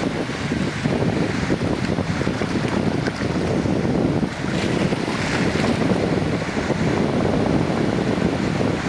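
Sea waves washing onto a beach: a steady rush of surf, with one wave swelling a little brighter about five seconds in.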